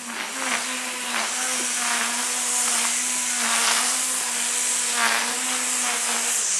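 A steady mechanical whine with a strong hiss, the engine-like hum holding one pitch and swelling a few times, then cutting off suddenly at the end.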